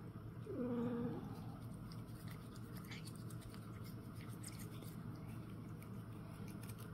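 Faint small scrapes and ticks of a cat toothbrush's bristles rubbing along a cat's teeth. A short low voice sounds about half a second in.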